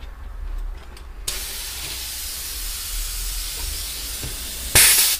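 Compressed air hissing steadily through a tyre inflator with a dial pressure gauge clamped on a bicycle tyre valve, starting about a second in, then a short, much louder blast of air near the end.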